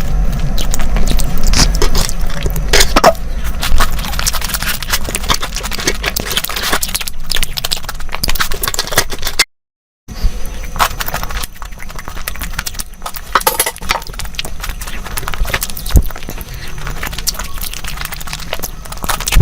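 Close-miked eating sounds: chewing and mouth noises with many irregular crisp crackles and clicks. The sound cuts out completely for about half a second near the middle.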